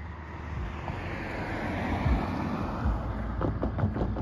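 A car driving past and away, its tyre and engine noise swelling and then holding.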